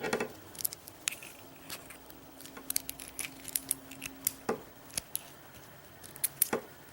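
Lock picks working in a Mul-T-Lock Interactive cylinder: irregular small metallic clicks and scrapes as the pins are manipulated.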